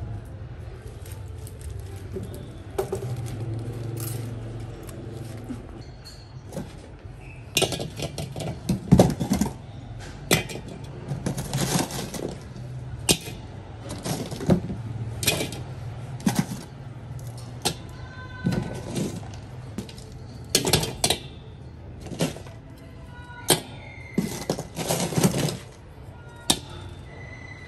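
Sticks of compressed charcoal set down one after another into a large aluminium pan, each landing with a sharp knock or clink, irregular and spread out from about seven seconds in.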